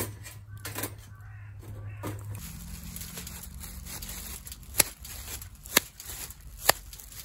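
Plastic-gloved hands shaping a raw burger patty over aluminium foil: the gloves rustle and crinkle, with three sharp slaps about a second apart in the second half as the meat is patted between the palms.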